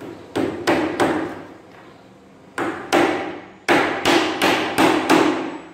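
Hammer blows nailing wooden slats to a panel frame: three strikes, a pause, two more, then a quick run of five, each a sharp knock with a short ringing tail.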